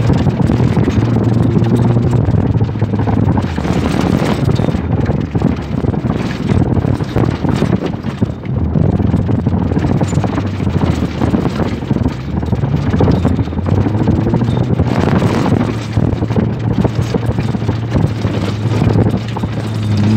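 4x4 off-road vehicle driving over a rough dirt track, heard from inside the cabin: the engine runs steadily under load over constant rattling and knocking from the bumpy surface.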